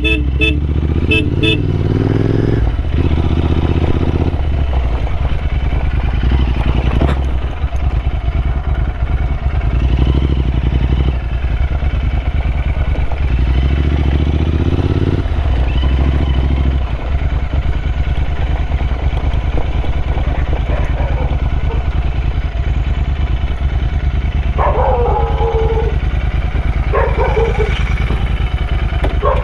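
Royal Enfield Interceptor 650's parallel-twin engine running under way, its pitch climbing twice as the bike pulls up through the gears.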